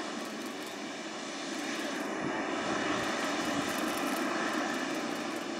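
Jet engine noise from a Boeing 777 freighter's twin GE90 turbofans: a steady roar that swells a little a couple of seconds in and eases slightly near the end.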